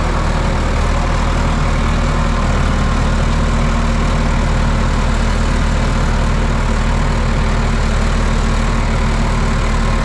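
Farm tractor's diesel engine running steadily under load as the tractor pushes soil with its rear blade.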